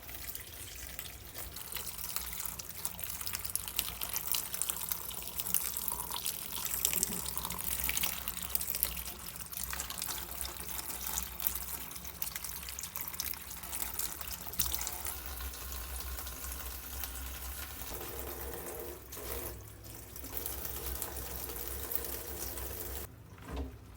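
Water running from a tap and splashing into a sink or basin. The flow cuts off near the end.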